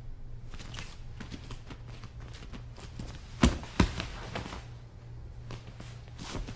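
Feet shuffling and stepping on a padded training mat, with two sharp knocks in quick succession about three and a half seconds in, over a steady low hum from the old recording.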